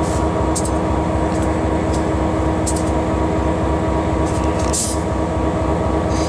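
Diesel locomotive engine running steadily, heard inside the cab as a loud drone with a steady hum. Several short, sharp hisses or ticks come through it, the longest nearly five seconds in.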